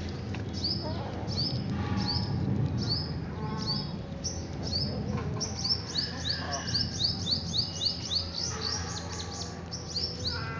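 A small bird chirping over and over, each a short rising chirp. The chirps come about twice a second at first and quicken to about three a second past the middle.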